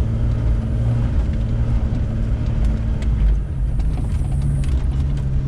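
Off-road vehicle's engine running at low revs as it crawls along the trail, its pitch stepping up a little about four seconds in, with a few light knocks and rattles.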